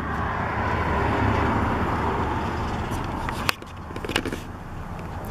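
Steady vehicle or road noise that swells a little, then drops away suddenly about three and a half seconds in, with a few light clicks or knocks around the drop.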